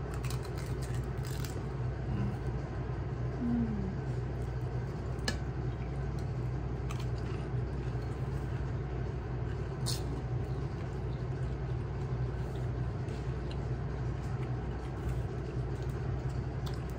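A steady low machine hum, with a few sharp little cracks and clicks as hollow gol gappa puris are broken open by hand and eaten.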